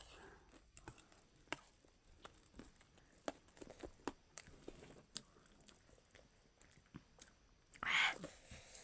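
Faint chewing and crunching of spicy chatpat (puffed-rice snack), with scattered small clicks. A breathy hiss comes near the end.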